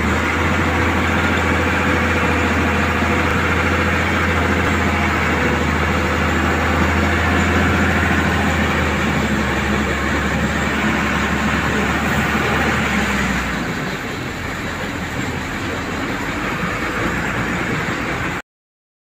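Caterpillar 924G wheel loader's diesel engine running under load as the bucket digs into a gravel pile and lifts, with a steady heavy low hum. About two-thirds through the hum drops away and the engine sound eases a little, then the sound cuts off suddenly near the end.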